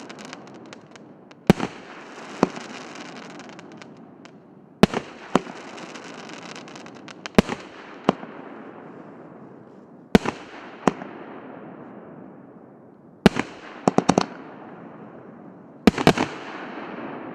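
A 36-shot, 2-inch fireworks cake firing shot after shot. Every two to three seconds there is a sharp bang, usually followed by a second bang less than a second later, and each trails off in a long fading hiss of burning stars. Near the end several bangs come in quick succession.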